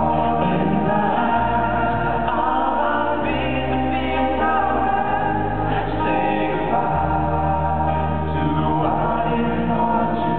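Live pop ballad: a male lead vocal backed by a male close-harmony vocal group and acoustic guitar, over a deep bass line that moves to a new note every couple of seconds.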